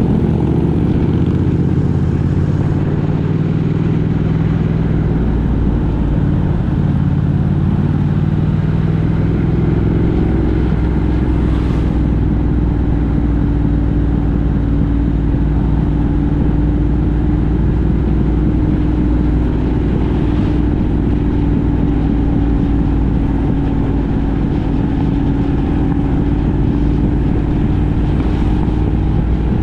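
Steady engine and road noise of a vehicle on the move. The engine drone shifts in pitch over the first few seconds, then holds one steady note.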